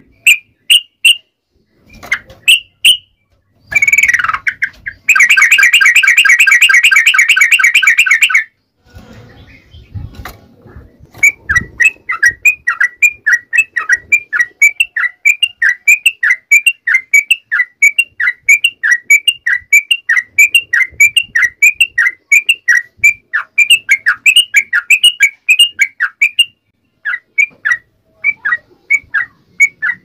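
Yellow-vented bulbul (trucuk) calling. A dense chattering trill comes about five seconds in. From about eleven seconds on there is a long run of short, sharp chirps, about three a second, with a short break near the end.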